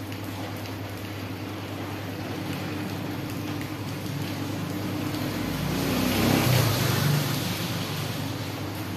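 A motor vehicle passing by: its engine noise builds, peaks about six and a half seconds in, then fades, over a steady low hum.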